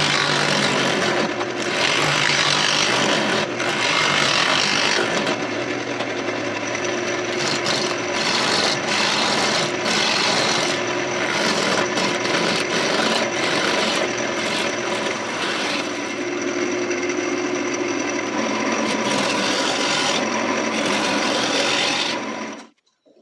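A gouge roughing a spinning mulberry log round on a wood lathe: a steady, loud scraping and rasping cut over the lathe's motor hum. It cuts off suddenly near the end.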